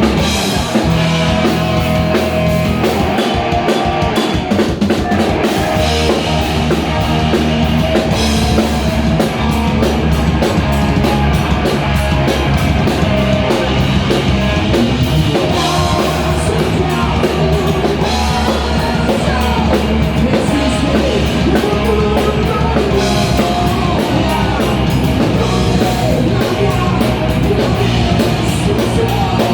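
Rock band playing live and loud, with the drum kit prominent.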